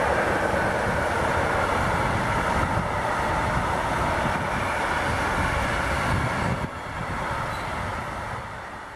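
Freight train of intermodal flat wagons loaded with containers and trailers rolling past, a steady rush of wheels on rail. It dips a little about two-thirds of the way through and fades near the end as the last wagons go by.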